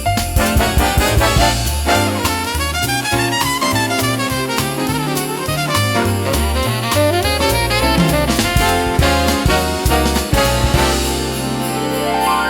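Upbeat jazzy Christmas instrumental with horn melody, walking bass and drum kit.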